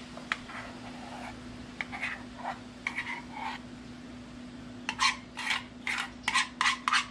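Metal spoon scraping mashed potato out of a small saucepan onto an enamel camp plate. There are soft scrapes at first, then from about five seconds in a quick run of sharp taps and scrapes, about four a second. A faint steady hum runs underneath.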